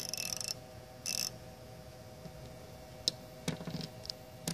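Hand ratchet wrenches being worked by hand: two short buzzing runs of rapid pawl clicks, at the start and about a second in. From about three seconds in, a few separate metallic clicks and clinks as the chrome tools are handled and touch each other.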